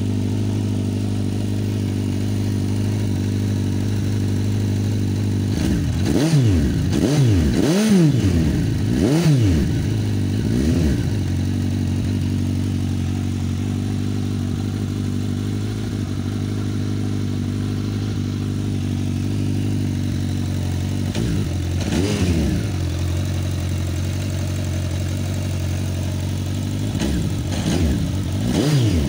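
Suzuki GSF 1250 S Bandit's inline-four engine idling steadily through a new aftermarket Dominator stainless slip-on silencer, blipped in short throttle revs: a run of about five quick revs between six and eleven seconds in, one more about two-thirds of the way through, and a few again near the end.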